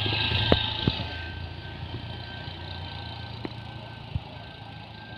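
Vehicle engines running on a steep hill road: a close engine rumble that is loudest at the start and fades over the next few seconds, with a steady high whine and a few sharp knocks.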